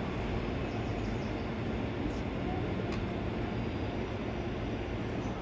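Steady low rumble of trains at a railway station in the distance, with no distinct events.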